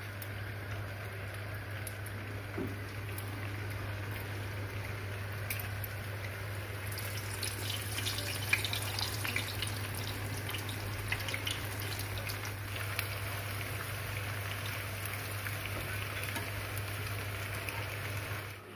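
Puri deep-frying in hot oil in a karahi: steady sizzling with small crackles and pops, busier from about seven seconds in, with one sharp click near the middle. A low steady hum runs underneath.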